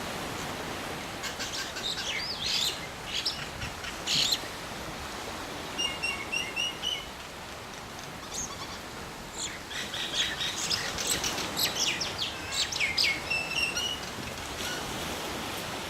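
Myna birds calling: bursts of varied chirps, whistles and squawks, with a run of about six short, evenly spaced notes around six seconds in, over a steady background hiss.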